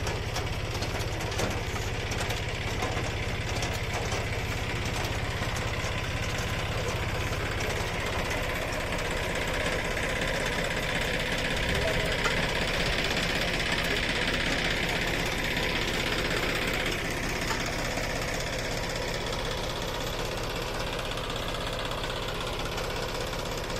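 John Deere tractor's diesel engine running steadily as it pulls an onion seedling transplanter through the field.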